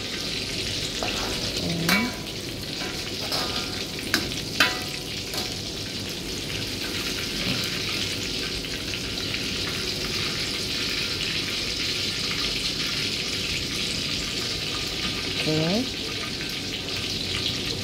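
Tofu cubes deep-frying in hot oil in a wok, a steady sizzle. In the first five seconds a few sharp clinks of the wire mesh strainer against the wok and plate.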